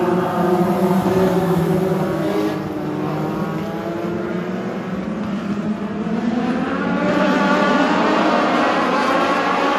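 US Legend race car's Yamaha four-cylinder motorcycle engine heard from inside the car: the engine note drops off for the first few seconds as the driver lifts for a corner, then climbs again about two-thirds of the way in as he gets back on the throttle.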